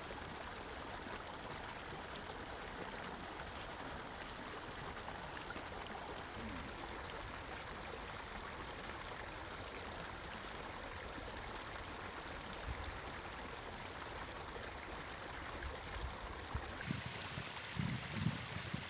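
Steady outdoor riverbank ambience: an even rushing hiss like flowing water, with a few low knocks in the last couple of seconds.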